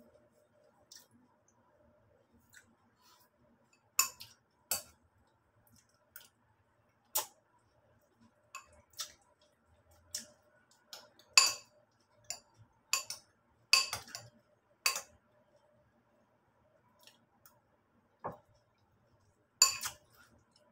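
Metal spoon clinking against a ceramic cereal bowl while eating cornflakes and milk: about a dozen sharp, irregular clinks, some in quick pairs.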